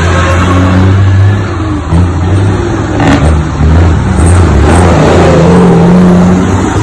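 Heavy diesel dump trucks driving past one after another, their engines loud and accelerating.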